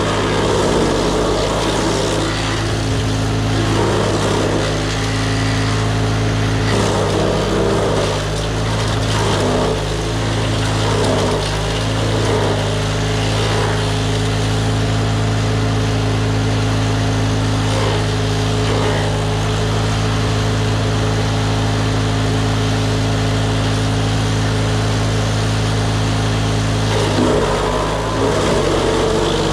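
DR wood chipper's engine running steadily under load. Several times its pitch dips briefly, each dip with a burst of chipping noise, as brush is fed through.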